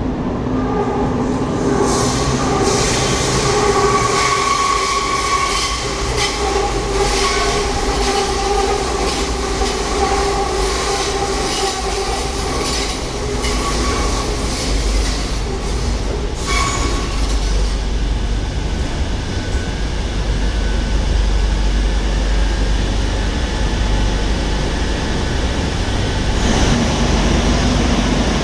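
Madrid Metro CAF 2000B subway train running through an underground station. For the first half or so there are steady high tones and frequent clicks over the rumble; after that it settles into a steady low rumble. Near the end a lower tone and more noise come in.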